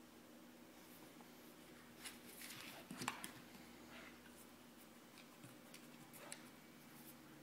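Faint clicking and scuffing of a puppy's claws on a hardwood floor as she scrambles up and spins after her tail, starting about two seconds in, over a low steady hum.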